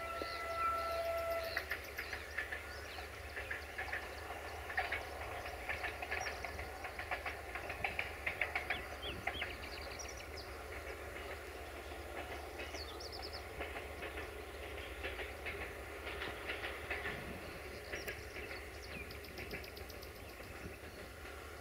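Distant passenger train hauled by an LDH diesel-hydraulic locomotive. A single steady horn note ends about a second and a half in. Then comes the rhythmic clickety-clack of coach wheels over rail joints, busiest in the first half and fading as the train draws away.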